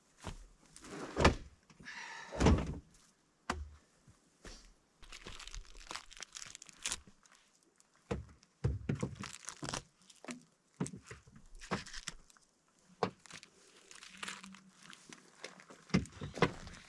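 A series of irregular knocks and thuds, the loudest two near the start, with rustling and scraping between them.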